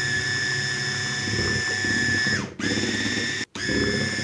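Electric hand mixer running at speed, its beaters churning thick chocolate cake batter in a glass bowl: a steady high motor whine over a low churning sound. It cuts out briefly twice, about two and a half and three and a half seconds in, then runs on.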